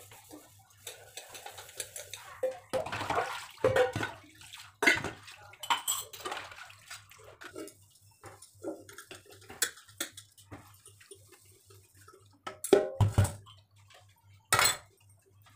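Stainless steel vessels being washed by hand in a steel kitchen sink: scattered clinks and knocks of steel pots against each other and the sink, with splashes of water. A few louder knocks come near the end.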